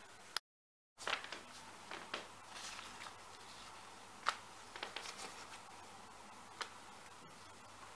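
Paper templates and leather pieces being handled on a cutting mat: light rustling and scattered soft ticks and taps, the sharpest about four seconds in. The sound drops to dead silence for about half a second just after the start.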